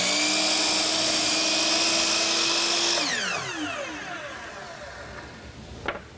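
Bosch sliding miter saw running at full speed through a cut, with a steady high whine. About three seconds in the trigger is released and the blade winds down with a falling whine, followed by a light knock near the end.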